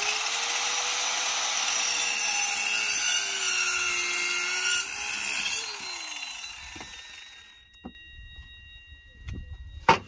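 Electric power saw cutting a wooden batten for about five and a half seconds, its motor note sagging in the middle of the cut. The motor then winds down after the cut. A single sharp knock comes near the end.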